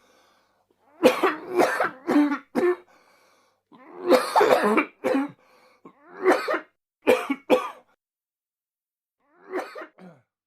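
A man coughing in repeated fits: a quick run of coughs, a longer rasping fit, then single and paired coughs. After a pause of about a second and a half, one fainter cough comes near the end.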